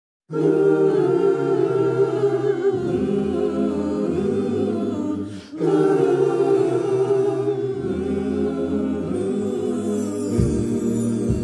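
Gospel choir singing sustained a cappella chords in close harmony, with a short break about halfway through. Low thuds come in near the end.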